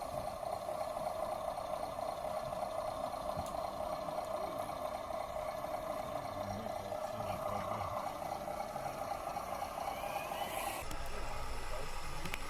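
Radio-controlled scale truck's electric motor and gearbox whining steadily as it drives, stopping abruptly about eleven seconds in.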